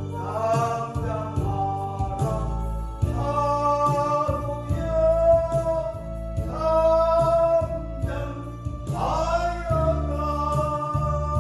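Christian praise song: a sung melody of long held notes over instrumental accompaniment.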